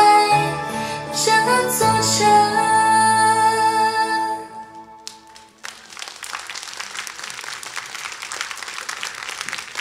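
A female singer's voice over backing music sings the last line of a Mandarin pop song, ending on a long held note that fades out about four and a half seconds in. After a brief lull, the audience applauds.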